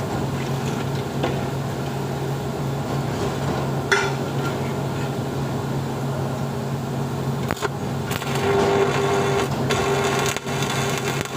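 Electric arc welding on steel: a steady welding-machine hum with crackle and a few sharp clicks, the arc crackle growing denser about eight seconds in.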